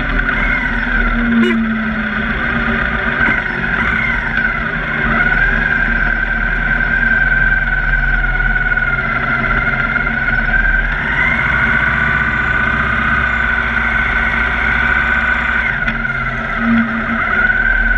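A Victory Cross Country's V-twin engine running at low speed as the motorcycle rolls slowly through a parking lot, with a steady high whine over the rumble that wavers in pitch.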